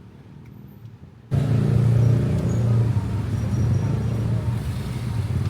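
A faint low hum, then, about a second in, a sudden cut to loud motor vehicle noise: a car running with a steady low engine and road hum.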